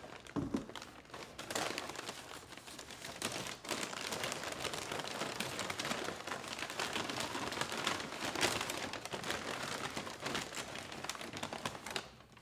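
White packing paper crinkling and rustling continuously as hands pull it off a wrapped skull cast, dying down near the end.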